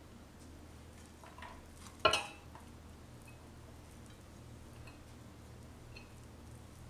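Fried rice being pushed with a spatula out of a pan into a stainless steel baking pan: soft scrapes, one sharp metal clink about two seconds in, then a few faint ticks.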